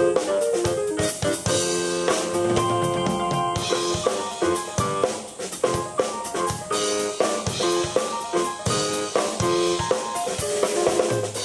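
Live keyboard and drum kit playing together in a rock jam: busy drumming with snare and bass drum under sustained keyboard notes.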